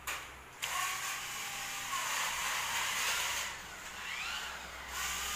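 Small electric motors of toy remote-control cars whirring as the cars run across a wooden floor, the whine rising and falling in pitch a couple of times.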